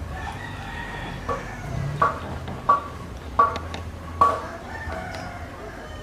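A chicken calling: one drawn-out call at the start, then four short, loud calls about 0.7 s apart.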